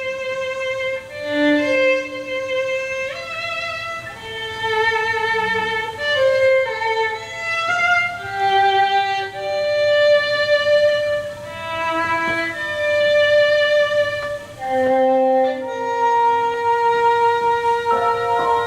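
Music in a violin-like bowed-string sound: a slow melody of held notes with vibrato, two or three notes sounding together.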